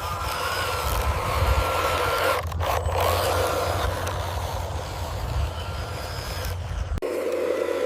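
Radio-controlled construction truck working: a steady motor running with a low rumble and some scraping, cut off abruptly about seven seconds in.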